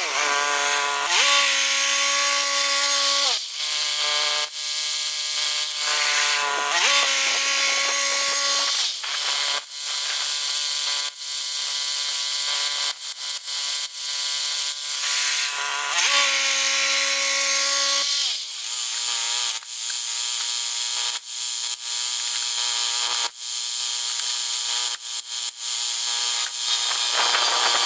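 Bandsaw sawmill cutting through a large pine log: its motor runs with a steady hiss from the blade in the wood, and the motor's pitch drops and recovers several times as the cut loads it.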